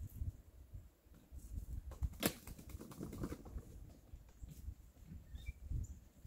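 Uneven low rumble of outdoor background noise, with one sharp knock a little over two seconds in followed by about a second of faint rattling, and a short high chirp near the end.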